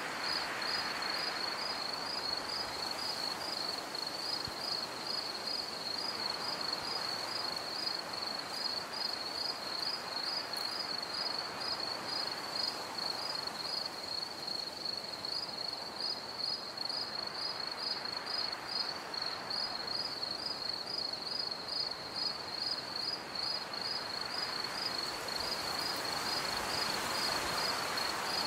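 Steady high-pitched insect chirping in a rapid, even pulse, over a soft rushing noise that slowly swells and fades.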